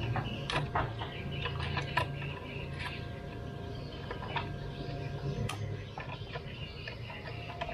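Irregular light clicks and taps from a hand handling the plastic side cowl of a Yamaha V-Ixion motorcycle, over a steady low hum.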